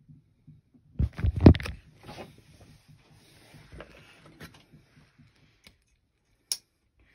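Close handling noise: a burst of knocks and scraping about a second in, then scattered faint clicks and rustles, and one sharp click near the end.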